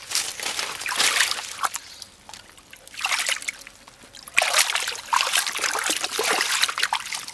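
Hands splashing and sloshing through a shallow muddy pool while groping for catfish, in several bursts with short quieter gaps between.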